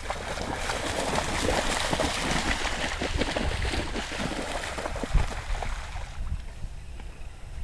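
Beauceron dogs splashing through shallow lake water, a busy run of splashes with one sharper thump about five seconds in. The splashing thins out about six seconds in.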